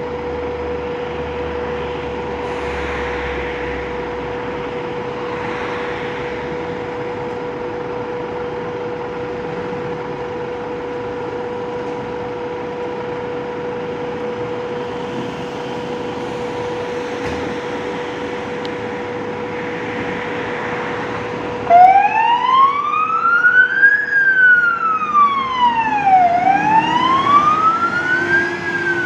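Fire engine's motor running with a steady single tone over it. About three quarters of the way in, the MAN TGM fire engine's electronic siren switches on loud, wailing slowly up and down, each rise or fall taking about two seconds.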